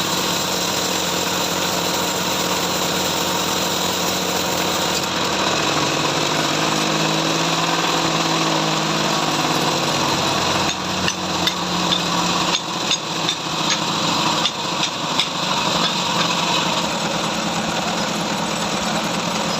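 Sawmill bandsaw running steadily while sawing a trembesi (rain tree) log, with a string of sharp knocks from about halfway through to about three quarters of the way.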